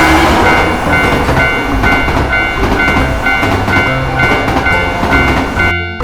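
A train running past, a loud rumble with the clatter of wheels over rail joints. The high steady ringing tones of a Japanese railroad crossing bell sound over it.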